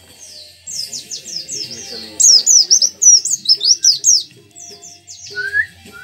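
Caged white-eye (pleci) singing a fast, varied song: rapid runs of short, high down-slurred notes in several bursts, the busiest in the middle, with a lower rising whistle near the end.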